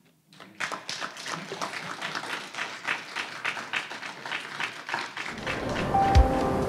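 Audience applauding with many quick, overlapping claps, starting about half a second in. Music with a low beat and held notes fades in under the applause about five seconds in.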